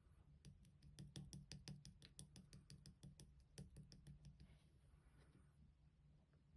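Clear slime being pressed and squished, giving a quick run of small crisp clicks and pops, about five a second, for about four seconds, then a soft squishing rustle.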